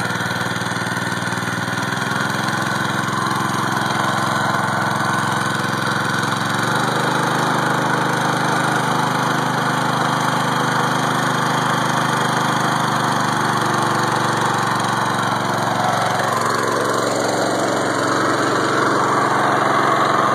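Predator 173 cc single-cylinder four-stroke engine running steadily under an electrical load of about 360 watts, belt-driving an alternator. About seven seconds in its pitch steps up slightly as the throttle is opened a little, because the load had slowed the engine.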